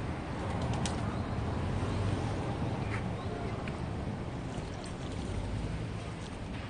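Steady outdoor street background, mostly a low rumble, with a few faint clicks.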